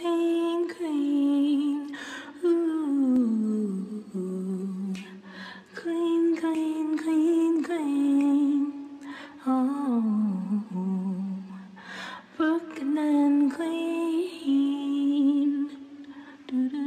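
A young female voice singing an intro jingle, mostly in long held, hummed-sounding notes. Several phrases slide down in pitch at their ends, with short breaks between them.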